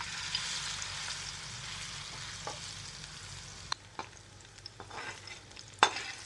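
Batter-coated soya nuggets hitting hot oil: a loud sizzle that starts suddenly and slowly settles as they fry. A few sharp clicks near the end as a slotted steel spoon stirs them against the pan.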